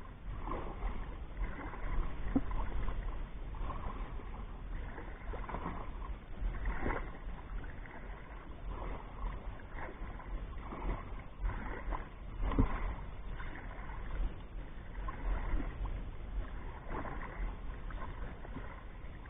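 Water sloshing and swishing in repeated irregular strokes, about one every second or so, over a low rumble of wind on the microphone.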